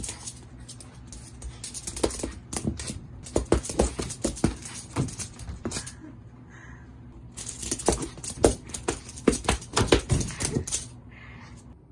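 Mame shiba puppy playing roughly with a toy on a wooden floor: fast, irregular clatter of claws and paws scrabbling and knocking on the floorboards. It comes in two flurries, with a short lull about six seconds in.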